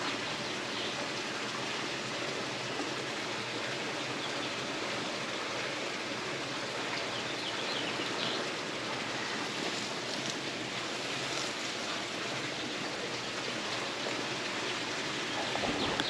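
A steady, even rushing noise, with a few faint ticks in the middle.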